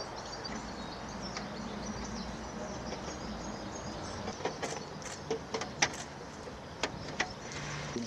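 Pheasant eggs clicking against each other and the plastic as they are set by hand into incubator trays: scattered sharp clicks from about halfway through, over a steady low rumble.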